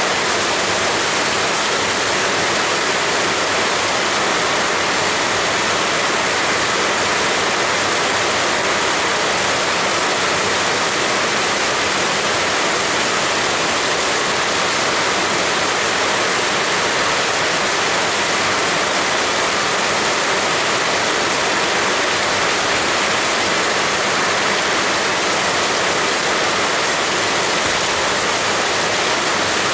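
Heavy rain falling steadily, a dense unbroken hiss with no single drops, thunder or other events standing out.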